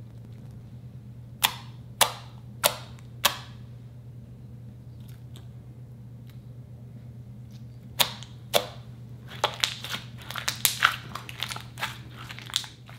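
White slime popping and crackling as fingers poke and press it on a countertop: four sharp pops about half a second apart, two more a few seconds later, then a quick run of crackling pops as it is kneaded by hand near the end. A steady low hum sits underneath.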